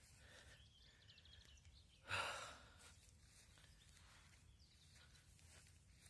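Near silence, broken once about two seconds in by a short breathy hiss.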